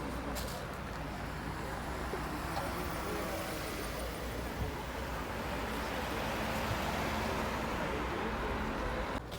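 Street traffic: car engines running with road noise, swelling slightly about six to eight seconds in.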